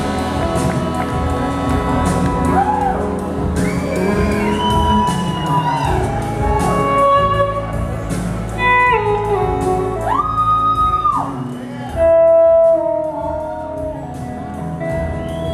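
Live blues-rock band with an electric slide guitar playing the lead on an SG-style guitar: notes glide up and down into long held, bending tones over the band's backing.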